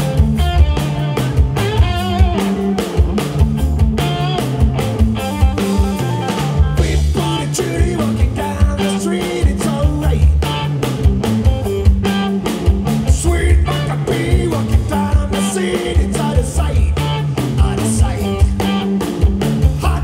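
Live rock band playing: two electric guitars through Marshall amps over a drum kit keeping a steady beat.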